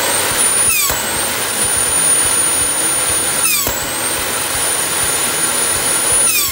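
Homebuilt jet turbine engine of a jet-powered motorcycle running with a loud rush and a high whine; the whine drops sharply three times, near the start, in the middle and near the end, and climbs back each time.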